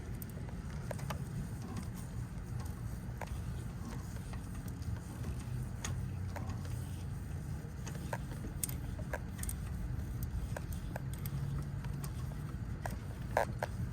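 Faint scattered clicks and taps of a compression gauge's hose adapter being fitted into a spark plug hole by hand, with a slightly louder click near the end, over a steady low rumble.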